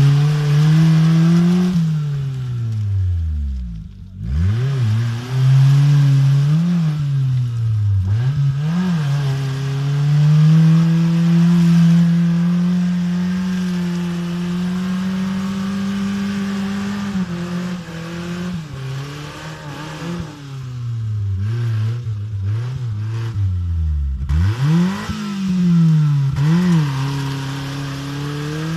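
Small Suzuki Samurai-type 4x4's engine revving hard and falling back again and again as the jeep churns through deep mud, with a long held high rev in the middle and two deep drops almost to idle.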